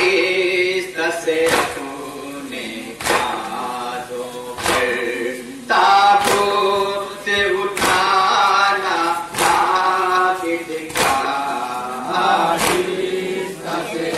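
Men singing a Muharram nauha (mourning lament), several voices together, with the crowd beating their chests in unison (matam) about every one and a half seconds.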